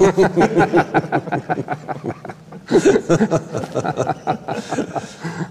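Two men laughing and chuckling in quick, pulsing bursts, in two spells with a brief pause a little over two seconds in.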